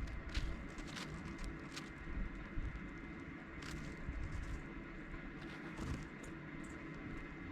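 Dark-eyed juncos giving short, sharp ticks and chips, scattered at irregular intervals, over a low steady rumble.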